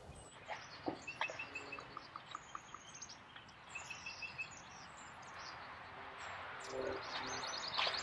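Birds chirping and singing over a faint outdoor hiss, with short runs of four or five quick high notes around a second in and again about four seconds in, and a few soft ticks.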